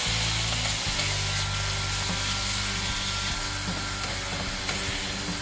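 Pork steaks sizzling in hot olive oil in a stainless steel skillet, with metal tongs rubbing and scraping as the meat is pressed and shifted, over a steady low hum.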